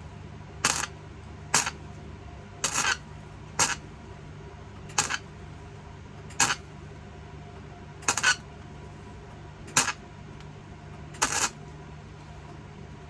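Electric arc welder laying short tack or stitch welds: nine brief crackling bursts of the arc, each a fraction of a second, about every second to second and a half, over a steady low hum.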